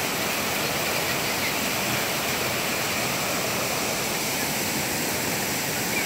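Waterfall cascading over smooth granite slabs into a shallow pool: a steady, even rush of water that does not let up.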